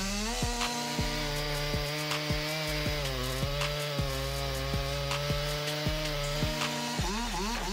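Background music with a steady beat and held notes that change pitch in steps.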